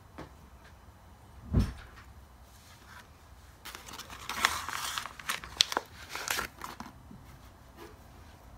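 A single thump about one and a half seconds in, then a blind-bag wrapper crinkling and rustling for about three seconds as it is handled, with a few sharp crackles.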